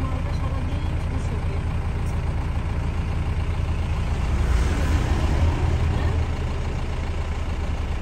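Steady low drone of an airliner in flight, heard inside the cabin: engine and airflow noise, swelling slightly about halfway through.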